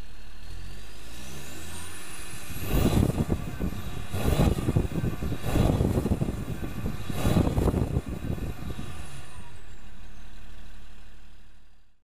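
BMW E46 330d's 3.0-litre straight-six turbodiesel, de-catted with only the rear silencer left, idling warm, then revved sharply four times and settling back to idle. A high turbo whistle rises with the revs and falls away after each blip.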